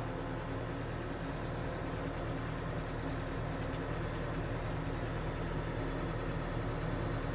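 Komatsu WB150PS backhoe loader's diesel engine running steadily as the machine drives along a gravel road.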